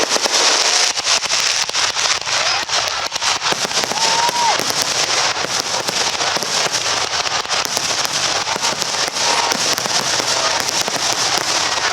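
Aerial fireworks in a dense barrage: rapid crackling and popping, with many reports overlapping over a continuous hiss. This is typical of a show's finale.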